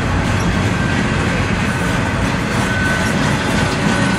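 Intermodal freight train of container-carrying well cars rolling past, a steady rumble of steel wheels on rail. A faint, thin high whine runs through it, a little stronger past the middle.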